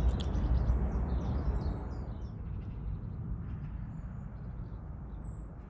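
Outdoor morning ambience: a few faint bird chirps over a low, steady rumble, the whole fading out gradually.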